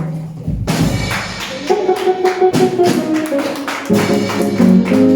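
Church band music starting up: rhythmic percussion hits, then held chords come in, with deeper bass notes joining near the end.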